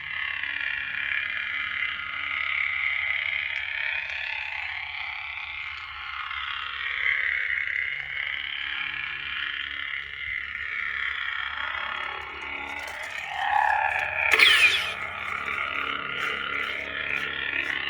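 Lightsaber hum from a Proffie sound board, played through a small speaker in the hilt. The buzzing drone swells and bends in pitch as the blade is swung. A brief sharp burst comes about 14 seconds in.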